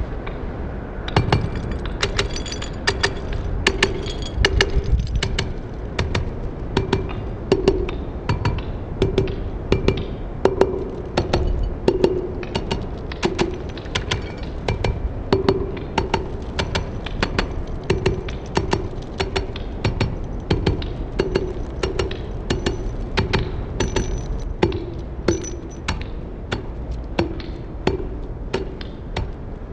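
A pestle pounding over and over in a white ceramic mortar, crushing something brittle: sharp knocks with a clinking ring, about two to three a second.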